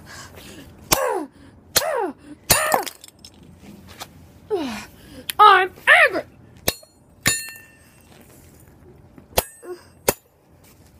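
A series of hard blows, about seven sharp strikes, smashing 3D-printed plastic objects in an attempt to break them, one blow with a brief ring. Loud yells that fall in pitch come with the strikes in the first half.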